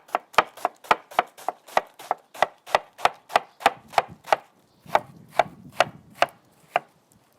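Kitchen knife chopping vegetables on a cutting board, a steady run of about three quick strokes a second that slows slightly and stops shortly before the end.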